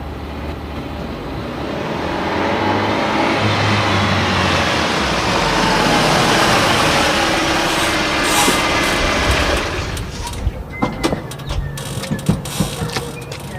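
Sound effect of a vehicle engine running, building up over about ten seconds with a steady low hum beneath. It gives way to a string of sharp clicks and knocks, ending in one hard hit.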